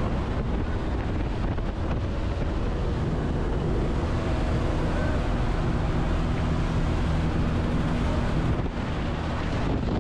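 Steady drone of a jump plane's engine under loud wind rushing across the microphone.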